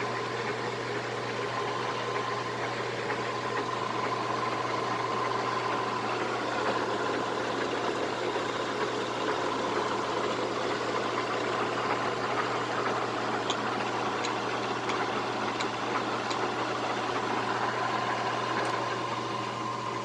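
Cincinnati Hydrashift 17-inch lathe running steadily, its headstock gearing turning the spindle at a newly selected speed, with a constant hum and a steady whine.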